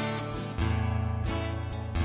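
Instrumental music with acoustic guitar strumming chords, a new chord struck every half second or so, with no singing yet.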